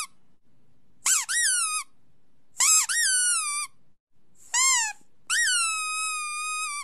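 Squeaky toy squeaking: a few short high squeaks that rise then fall in pitch, then one long held squeak near the end.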